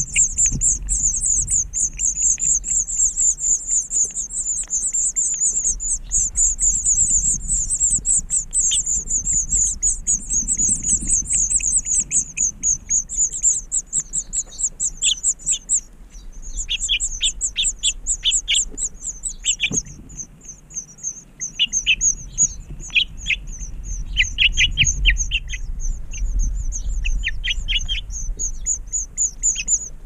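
House finch nestlings begging for food as the male feeds them: a rapid, unbroken, very high-pitched peeping, loudest in the first half. In the second half it thins to separate pulses, and shorter, lower chirps come in bunches.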